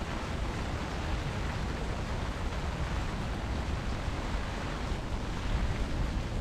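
Steady hiss of rain, with wind buffeting the camera microphone as an uneven low rumble.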